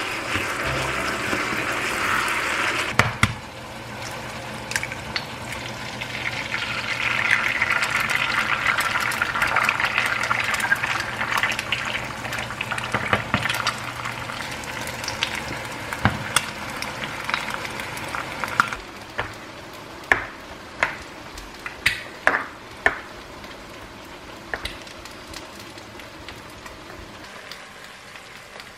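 An egg frying in a small pan, sizzling steadily. About two-thirds of the way through the sizzle gives way to a quieter stretch with a few sharp clicks.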